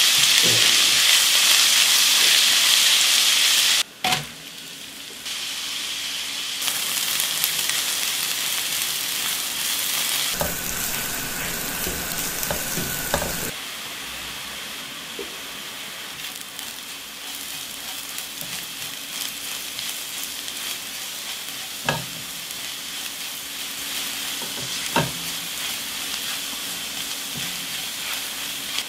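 Chopped garlic and ginger sizzling in hot oil in a nonstick pan while a silicone spatula stirs them, then chopped onions with chilli powder frying and being stirred. The sizzle is loudest in the first few seconds and softer after that, with stirring scrapes and a few sharp taps.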